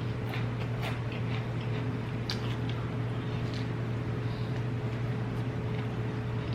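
Close-miked chewing of food, with a few soft scattered crunches, over a steady low hum.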